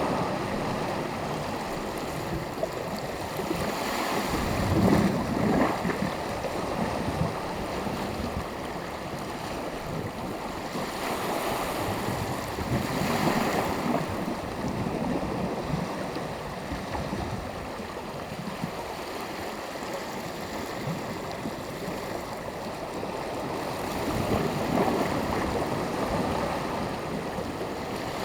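Small sea waves breaking and washing on the shore, a steady hiss of surf that swells into louder wave breaks about three times: around 5 s, 13 s and 25 s in.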